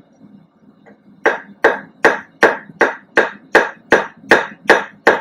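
Blacksmith's hand hammer striking hot quarter-inch round steel bar on an anvil in a steady rhythm, about two and a half blows a second, starting about a second in after a short pause. The blows are drawing a point to a taper, knocking the corners off the square to make it octagonal.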